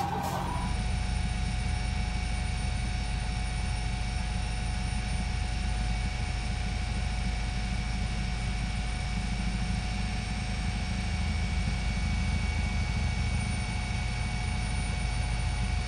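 Helicopter engine and rotor noise heard from aboard the aircraft: a steady, even drone with a constant turbine whine over a low rumble.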